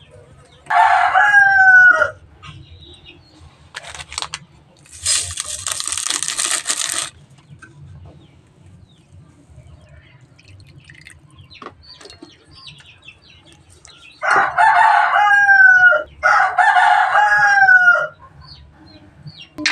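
A rooster crowing three times: once about a second in, and twice in quick succession near the end, each crow ending in a falling note. About five seconds in there is a two-second rush of water poured from a dipper.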